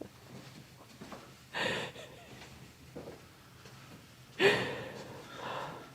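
A woman taking deep, audible breaths: one about a second and a half in, then a louder, longer breath at about four and a half seconds that starts with a slight voiced sound, followed by a softer one.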